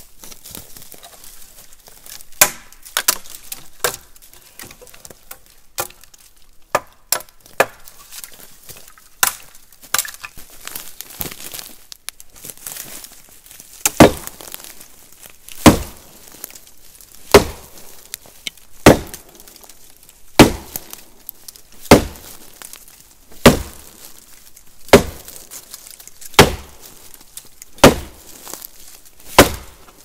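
An axe chopping dry, dense deadwood. A few scattered lighter knocks and clicks come first, then about halfway through eleven hard, even strikes follow at a steady pace, one every second and a half.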